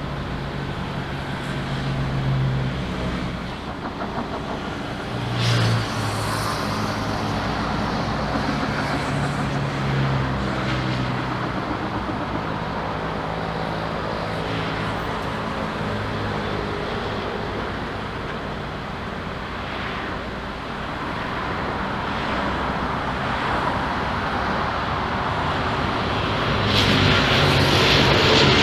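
Steady engine and road-traffic noise with shifting low engine tones. In the last two seconds an airliner's engines grow louder as it nears.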